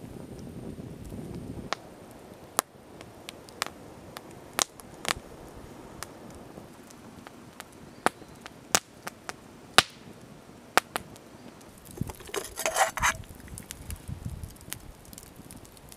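Wood fire crackling: sharp single pops and snaps at irregular intervals, roughly one a second. About twelve seconds in comes a short rattling clatter.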